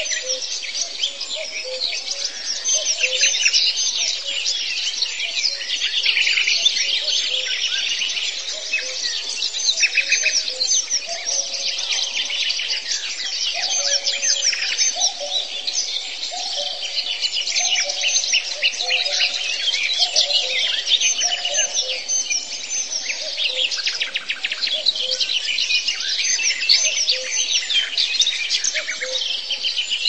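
Many wild birds singing and calling at once in a dense chorus of high chirps and trills, with lower notes repeating underneath.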